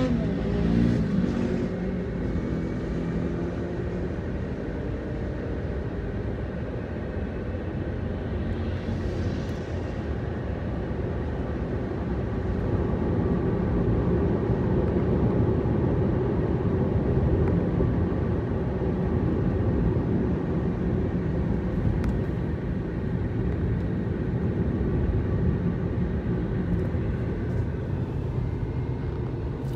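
Car driving along a road: a steady rumble of engine and tyres on the road surface. The engine note climbs briefly at the start as it accelerates, and a short rush of hiss swells and fades about nine seconds in.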